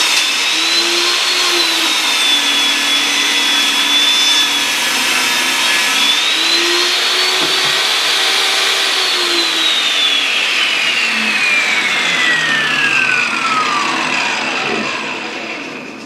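Table saw running while ripping boards, its motor whine wavering and dipping slightly as the blade takes load. About nine seconds in the saw is switched off and the whine falls steadily in pitch as the blade spins down, fading out near the end.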